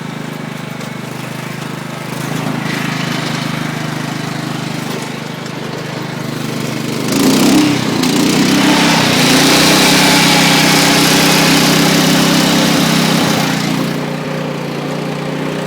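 Riding lawn tractor engine running steadily. About seven seconds in it surges and runs louder and harsher for several seconds, then settles back near the end.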